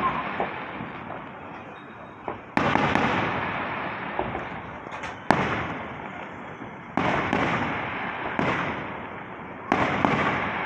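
Aerial firework shells bursting overhead: four loud bangs a couple of seconds apart, each fading out over a second or two, with smaller pops and crackles in between.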